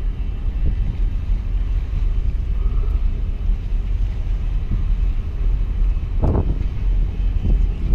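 Wind buffeting the microphone: a steady, uneven low rumble, with a few stronger gusts about six seconds in.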